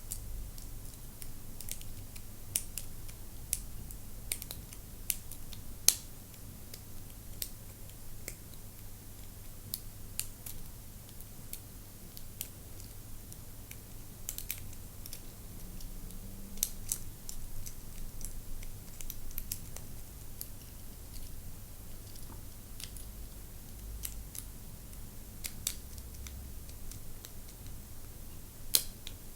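Lock pick and tension wrench single-pin picking an ABUS 64TI/50 Titalium five-pin padlock: faint, sharp metallic clicks and scrapes at irregular intervals, one to a few a second, as the pins are lifted and set.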